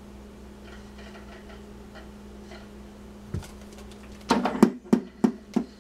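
Cat clawing and kicking at a sisal-rope scratching post: a single low thump, then near the end a quick run of five loud, scratchy scuffs about a third of a second apart.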